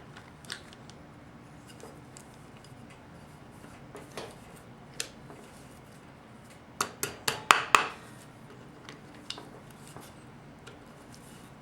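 Small metal parts and tools clinking and tapping against a 4L60E transmission pump while its vanes are worked into place, with scattered clicks and a quick run of sharp metallic clinks about seven seconds in, the loudest part.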